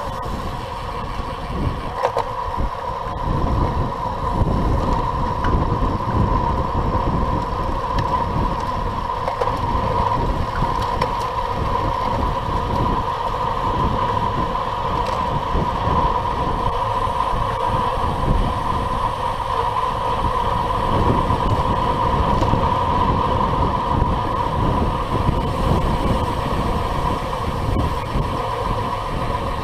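Wind buffeting a racing bicycle's mounted camera microphone at around 30–37 mph, a fluttering low rumble mixed with tyre and road noise, over a steady high hum.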